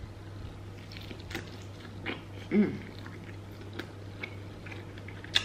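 Chewing crispy fried chicken close to the microphone: scattered small crunches and wet mouth clicks, with a short hummed "mm" about two and a half seconds in, over a steady low hum.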